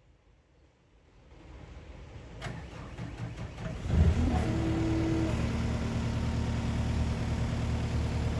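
CAT 259D compact loader's diesel engine starting: sound builds from about a second in, the engine catches with a loud burst about four seconds in, then settles into steady running.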